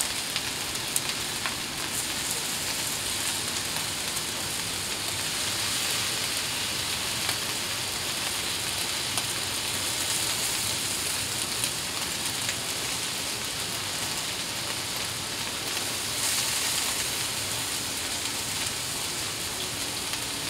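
Pork chops and fried rice sizzling steadily on a hot Blackstone flat-top gas griddle, a continuous even hiss with faint crackles.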